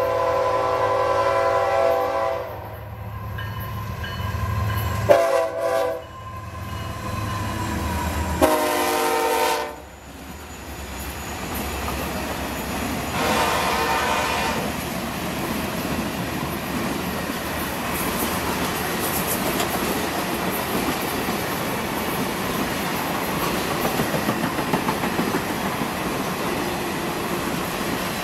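Lead Florida East Coast ES44C4 diesel locomotive's air horn: a long blast, a short one, another of about a second, and a fainter fourth blast about 13 seconds in, over the low rumble of the diesel locomotives going by. From about ten seconds in the engine rumble drops away and the circus train's passenger cars roll past in a steady clatter of wheels on rail.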